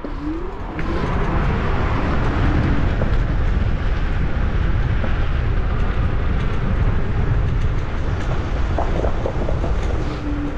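MS Energy X10 electric scooter on the move over asphalt: heavy wind buffeting and road rumble on the microphone, with a brief rising motor whine at the start as it speeds up and a steady whine returning now and then. A few light knocks come from bumps in the surface.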